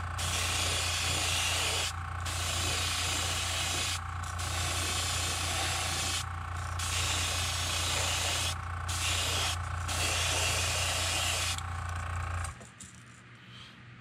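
Airbrush hissing as it sprays paint onto a crankbait in repeated passes, the hiss breaking briefly about every two seconds as the trigger is let off between strokes, over a steady motor hum. Both stop about twelve and a half seconds in.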